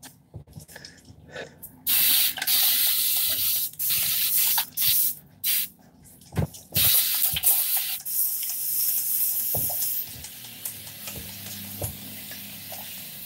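Hand-held spray bottle misting a durag: several separate bursts of spray hiss, the first the longest, then a fainter, steadier hiss over the last few seconds.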